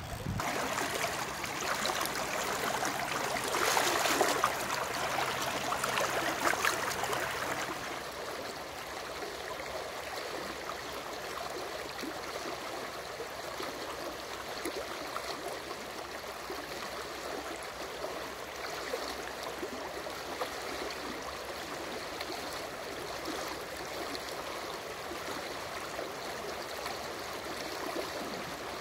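River current rushing and gurgling in a steady watery hiss, louder for about the first eight seconds and then steadier and softer.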